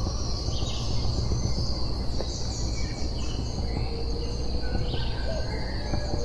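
Outdoor natural ambience: birds chirping and calling over a steady, high insect drone, with an even low rumble underneath. A low whistled note comes in about four seconds in.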